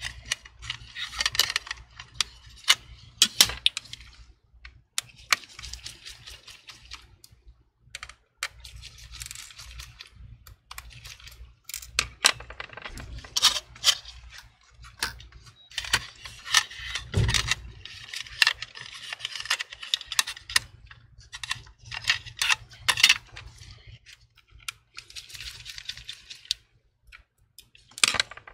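Gloved hands handling the internal parts of an open MacBook Pro: irregular light clicks and taps of small plastic and metal parts, with short stretches of rustling or scraping and one duller knock about two-thirds of the way through.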